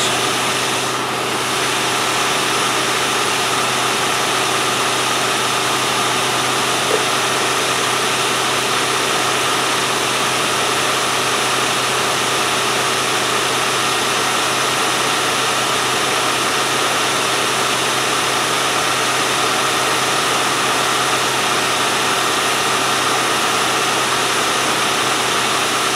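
A 1997 Land Rover Discovery's petrol engine idling steadily, fast and noisy, just after starting off the key.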